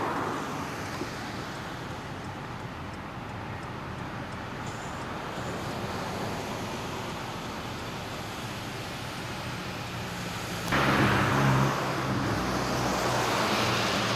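Road traffic passing by, a steady rush of tyres and engines; about eleven seconds in a louder vehicle goes by close, its engine hum coming up.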